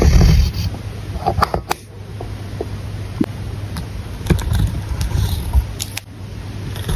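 A pen writing on paper: the tip scratching across the page in short strokes, with small irregular ticks and taps as it touches down and lifts.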